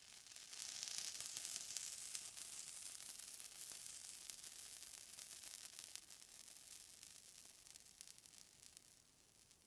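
A crackling, hissing water sound made of many tiny pops, which swells about a second in and then slowly fades away.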